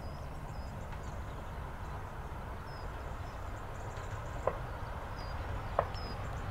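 Low, steady rumble of a Class 45 diesel locomotive still some way off, approaching, with birds chirping faintly and two sharp clicks in the second half.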